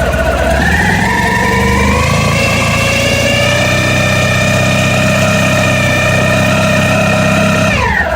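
Honda ST1100's V4 engine raised from idle to a held higher speed, then dropping back to idle near the end, with the rattling noise that the owner is trying to track down.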